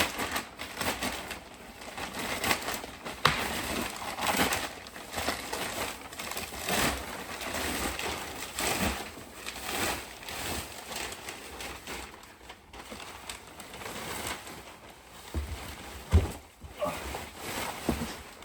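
Packaging being torn and pulled off a plastic body-kit part: irregular rustling and scraping, with a sharp knock about three seconds in and another near the end.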